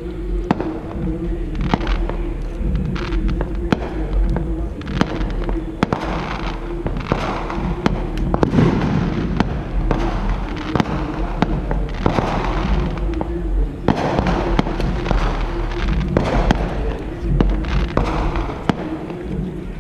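Consumer fireworks going off: a string of sharp crackles and pops over swelling bursts of hissing that rise and fall every few seconds.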